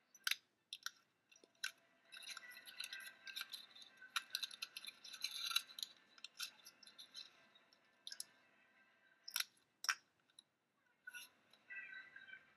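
Cardstock being handled and rustled, with several sharp clicks from a paper circle punch punching holes through the flaps.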